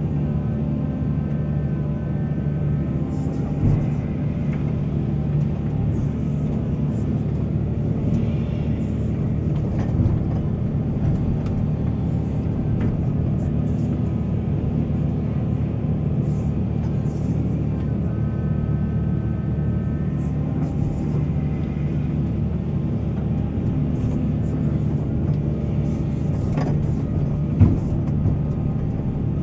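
A mining excavator's large diesel engine runs steadily under load with a deep, even hum. A brief higher whine comes twice, and a sharp knock is heard near the end.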